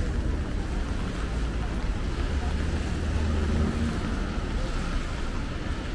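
City street noise: a steady hiss with a low rumble that swells about two seconds in and eases off near four seconds.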